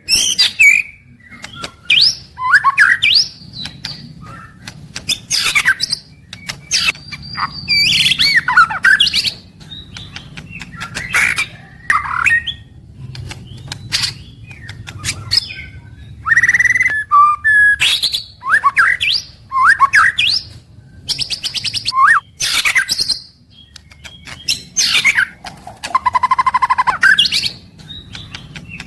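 White-rumped shama (murai batu) singing in fast, varied phrases of whistles, rising and falling chirps and buzzy rattles, a new phrase every second or two, in full 'gacor' song.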